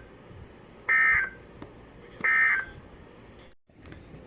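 Emergency Alert System SAME header tones: two short, harsh, buzzy digital data bursts about a second and a half apart. They are the coded header that opens a new weather alert, here a tornado warning.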